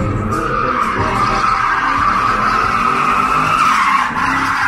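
A car's tyres squealing continuously as it drifts in circles, with its engine running hard underneath.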